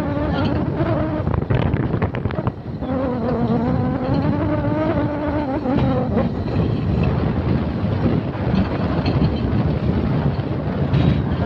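A fishing boat's motor droning, its pitch wavering up and down over several seconds, with a rough noisy rumble underneath.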